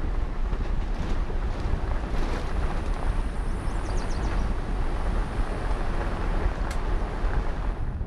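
Wind rushing over the microphone of a camera mounted outside a moving Toyota Tacoma pickup, over the low rumble of its tyres on a gravel road. A few light ticks sound about halfway through.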